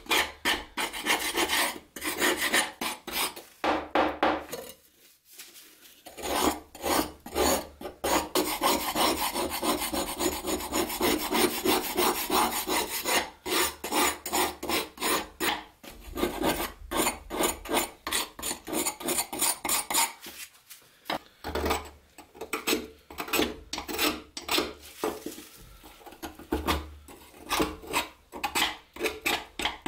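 A thin metal tool scraping thick, flaking rust off an old steel knife blade and tang in quick repeated strokes, with brief pauses about five seconds in and again about twenty-one seconds in.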